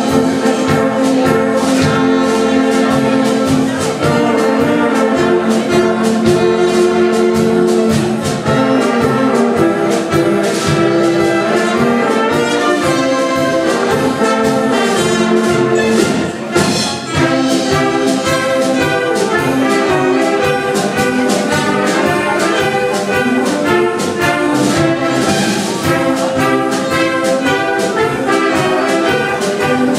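Live brass band with tuba, trumpets and woodwinds playing Egerländer-style folk music, full chords over a steady beat.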